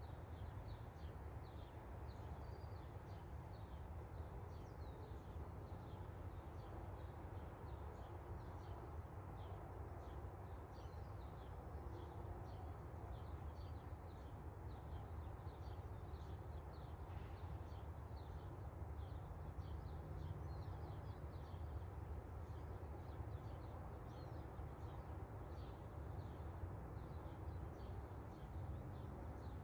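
Many small birds chirping continually, faint and overlapping, over a steady low rumble.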